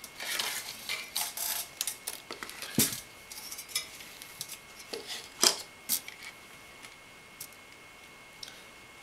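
Parts of a CPU tower cooler handled and pulled apart: the black shroud lifted off the aluminium fin towers, making a string of clicks, light knocks and rattles, with a firmer knock about three seconds in and sharp clicks around five to six seconds, then dying down.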